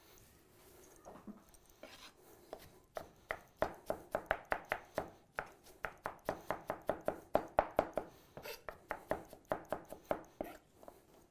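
Chef's knife rapidly chopping onion on a cutting board: a quick, even run of knocks about four a second, starting about two seconds in and stopping shortly before the end.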